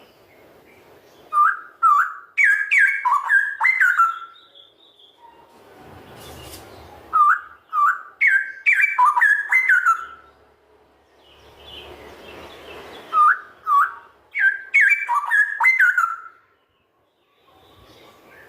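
Straw-headed bulbul (cucak rowo) singing: three loud song phrases of quick, rich whistled notes, each lasting about three seconds, with pauses of a few seconds between them.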